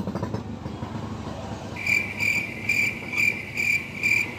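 Rhythmic high-pitched chirping, about three chirps a second. It is absent for the first second and a half, then resumes and keeps an even beat.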